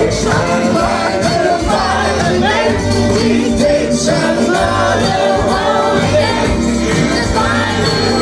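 Live performance of a woman singing into a microphone, accompanied by an acoustic guitar, heard through a small PA in a pub room.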